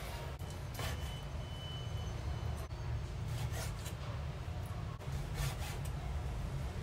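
Chef's knife slicing raw pork liver on a wooden cutting board: a few irregular scraping strokes and light taps of the blade against the board, over a steady low hum.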